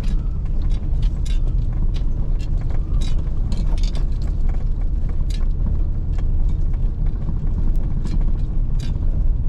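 A vehicle driving slowly along a rough dirt field road: a steady low rumble with frequent knocks and rattles as it goes over the bumps.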